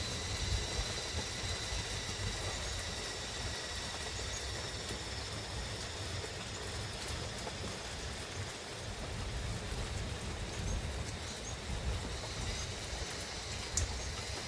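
Steady rain falling through a pine forest, an even patter with a low rumble underneath. A single sharper drop tap comes near the end.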